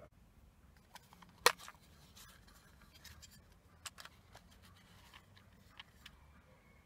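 Plastic cassette case snapping open with one sharp click about a second and a half in, then a few lighter clicks and rattles as the cassette tape is lifted out and handled.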